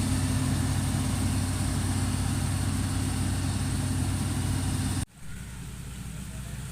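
Engine of the 8070 harvesting machine running steadily with a deep, even drone. About five seconds in it cuts off abruptly to a quieter engine sound.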